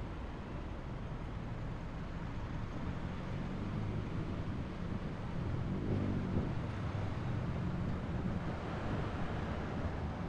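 Car engine hum and tyre noise of a car driving, with a short swell in the engine note about six seconds in.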